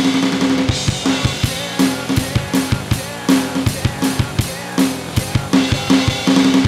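Fast, driving rock drumming on an electronic drum kit: rapid kick and snare hits, several a second, with cymbals, played along to a rock backing track whose sustained pitched notes come and go underneath.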